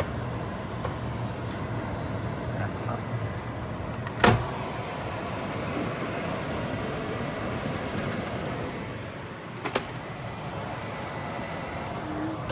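Microwave oven running with a steady hum, with a sharp pop about four seconds in and a quick double pop near ten seconds in. The pops are popcorn kernels bursting, sparse as the popping nears its end.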